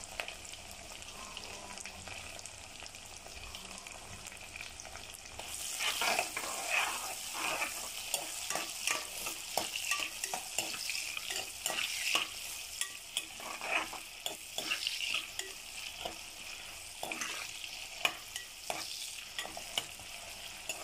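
Chopped onion, carrot and potato sizzling in hot oil and ghee in a metal pressure cooker. From about five seconds in, a ladle stirs them, scraping and clicking against the pot over the louder sizzle.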